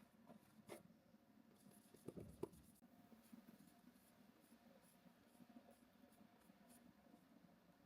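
Faint scratchy strokes of a paintbrush working acrylic paint on canvas, with a soft knock a little over two seconds in.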